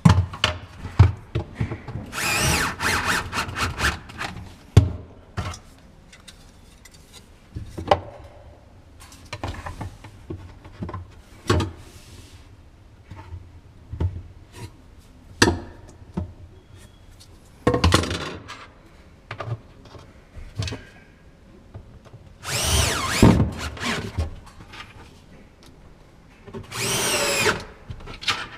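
Cordless drill driving screws in about four bursts of one to two seconds each, its pitch bending as the screws bite. Between the bursts come knocks and clicks of handling.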